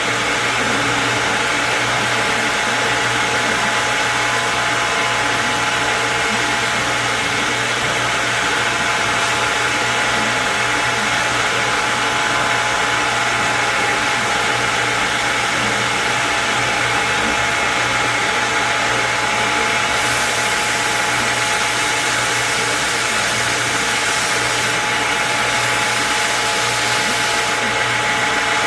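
Electric motor-driven workshop machine running steadily, an even whir with a constant hum and no changes in load.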